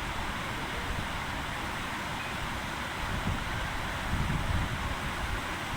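Wind buffeting the microphone in irregular low gusts over a steady hiss of outdoor background noise.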